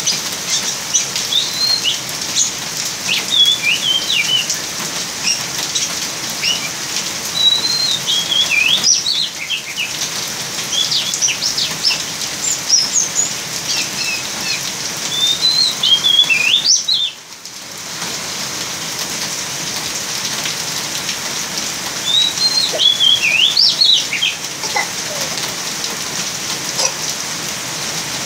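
Young caged oriental magpie-robin (kacer) singing short runs of quick chirping, twittering notes, with pauses of a few seconds between them, over steady rain.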